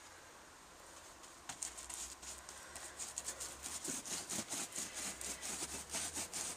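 Paintbrush scrubbing and dabbing polyfiller paste onto a plaster-cloth (Modroc) hillside: quick, irregular scratchy strokes that start about a second and a half in.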